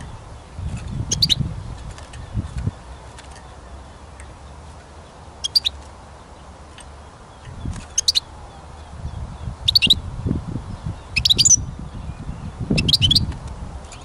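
European goldfinch giving short chirping calls, six in all, spaced a second or two apart, over a low gusty rumble.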